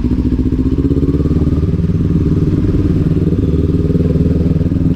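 Kawasaki Ninja 400's parallel-twin engine running steadily at low revs.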